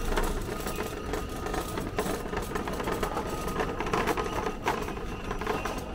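Continuous rattling and clinking clatter over a steady hum, the noise of a self-service restaurant.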